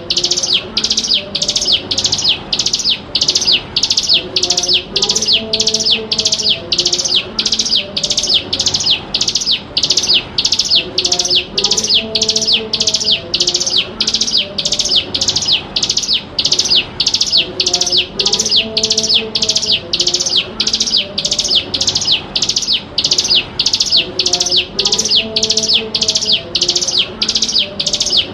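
Ciblek gunung (a prinia) calling in a rapid, unbroken series of short high notes, about two a second, evenly spaced: the bird's steady 'ngebren' call, used as a lure and learning recording for young birds.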